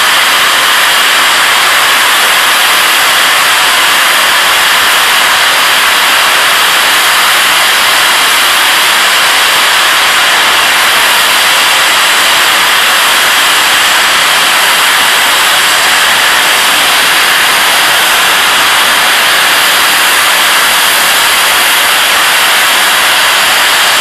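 Safety valves of the LNER A4 Pacific steam locomotive 60019 Bittern blowing off: a loud, steady hiss of escaping steam that never lets up. The boiler has reached its blow-off pressure while the engine stands.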